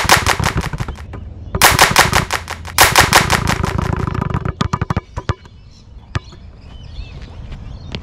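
Wilson basketball dribbled very low and fast on a hard court, about ten bounces a second, in two long runs. The bounces thin out after about four and a half seconds, with one last bounce near six seconds.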